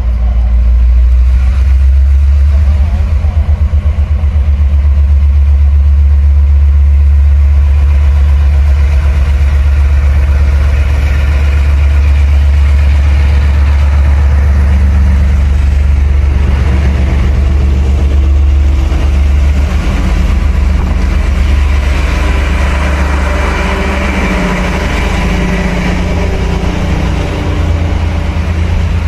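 Two Taiwan Railway R100-class diesel-electric locomotives, double-heading, pulling a train out of a station and passing close by. Their loud, deep, steady engine drone dominates, and the rolling noise of the passing train grows in the second half as the coaches go by.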